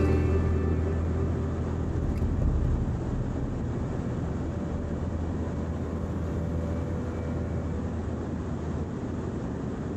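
Light helicopter in flight: the engine and rotor give a steady low drone with rushing air over it, a little louder in the first few seconds.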